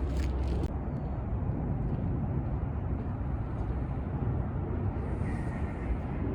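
Steady low outdoor rumble, with a few faint clicks in the first second.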